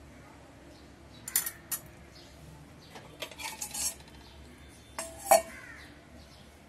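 A steel spoon clinks against a stainless steel pot a few times. About five seconds in, a steel lid is set down on the pot with a sharp clang that rings briefly, covering the dalia to simmer.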